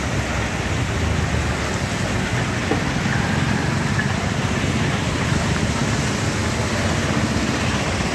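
Steady hiss of heavy rain, with motor traffic driving through floodwater.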